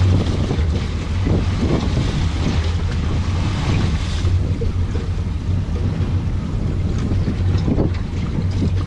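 Wind buffeting the microphone over the wash of the sea around a small fishing boat, with a few stronger gusts in the first half.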